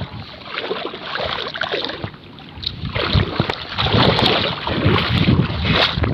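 Strong wind buffeting the microphone, a gusty rumble that grows louder about three seconds in.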